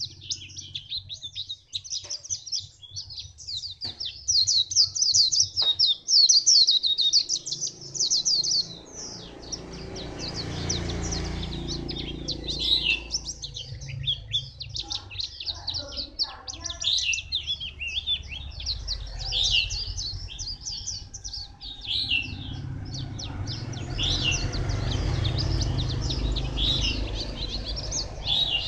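Caged white-eye singing: a rapid, high twittering song, packed tight for the first several seconds, then broken into shorter, spaced phrases.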